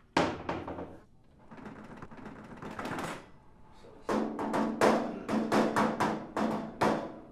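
Suspense music sting with percussive hits: one sharp hit at the start, a building wash of noise, then a rapid run of about a dozen evenly spaced pitched stabs, about four a second, that stops abruptly.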